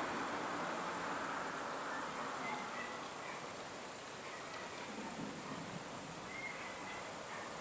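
Crickets chirring steadily in a continuous high-pitched trill, with a broad wash of distant noise fading away over the first second or two.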